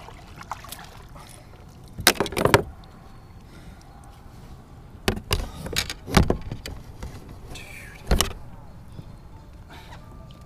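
Several knocks and clunks against a kayak as a freshly landed fish and gear are handled aboard, coming in clusters about two seconds in, around five to six seconds, and once more near eight seconds.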